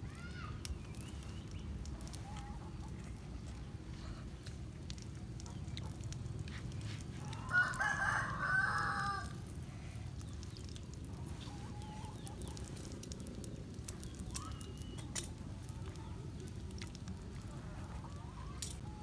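A rooster crows once, about two seconds long, starting a little past seven seconds in, over a steady low background noise.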